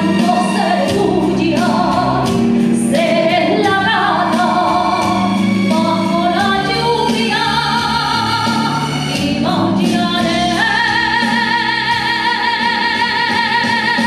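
Woman singing a Spanish ballad live into a handheld microphone over musical accompaniment. Over the last few seconds she holds one long note with vibrato.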